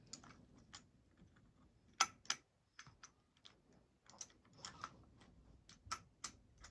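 Irregular sharp clicks and taps of lightsaber hilt parts being handled and fitted together, with two louder knocks about two seconds in.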